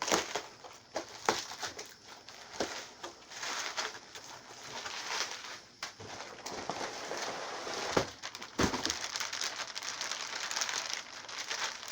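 Cardboard shipping box and its packaging being opened by hand: steady rustling, scraping and crinkling, with several sharp knocks from the box being handled.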